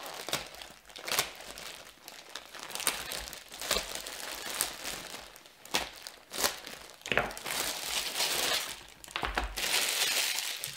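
Clear plastic packaging bag being slit with a knife blade and pulled open, crinkling and crackling in irregular snaps. Near the end the wrapping is crumpled up in the hands, a denser run of crinkling.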